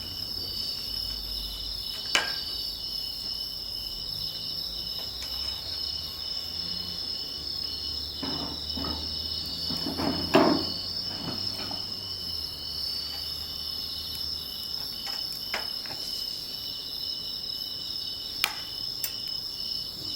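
Steady high trilling of insects, with a few sharp knocks and clatters of firewood and tools as a campfire is tended, the loudest about ten seconds in.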